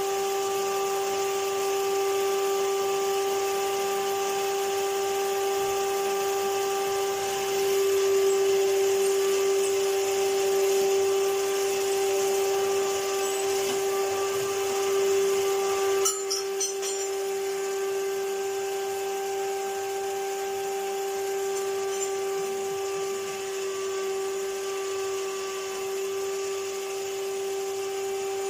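Numatic Henry vacuum cleaner running, its motor giving a steady, even-pitched hum. It gets a little louder in the middle, and there is a brief clatter about halfway through.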